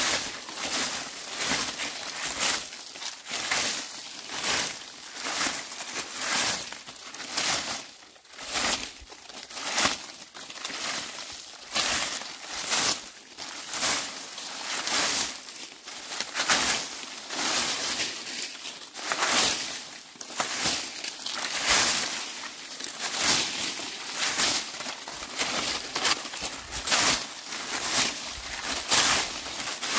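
Dry leaves being swept, a scratchy swish and crackle of leaves about once a second in an even rhythm.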